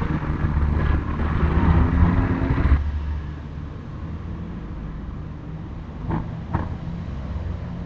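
A house's sliding window being pulled shut: a rumble along its track for nearly three seconds that stops suddenly, then two short sharp knocks about three seconds later.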